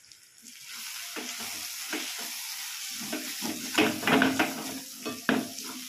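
A tomato-and-spice masala with vegetables sizzling in hot oil in a kadai while a metal spatula stirs and scrapes through it. The sizzle comes in about half a second in, and the scraping strokes grow louder towards the end.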